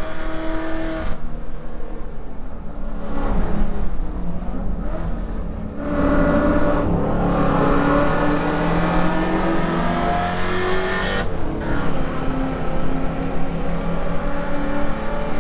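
Holden VK Commodore's 308 V8 heard from inside the cabin on track: it runs lighter for the first few seconds, then pulls hard from about six seconds in with its pitch climbing, breaks briefly near eleven seconds, and carries on under load.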